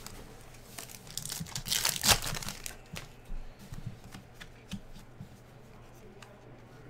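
A foil trading-card pack wrapper is torn open with a crinkling rip about two seconds in, then the cards click softly as they are handled.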